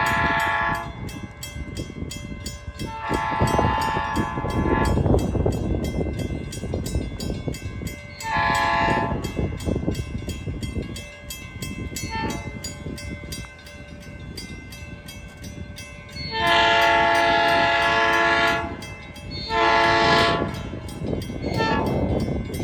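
South Shore Line electric commuter train sounding its chord horn in a series of blasts: several of a second or two, one short toot, and the longest, about two seconds, near the end. The rumble of the train on the rails carries on between the blasts.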